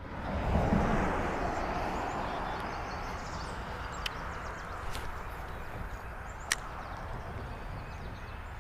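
Steady outdoor background noise, loudest in the first second or so, with a few sharp clicks about four, five and six and a half seconds in from a spinning reel and rod being handled.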